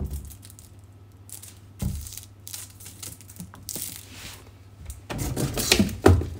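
A large plastic drink bottle being handled: scattered knocks and rustles against a cardboard case and plastic bin, with a louder flurry of clattering about five seconds in.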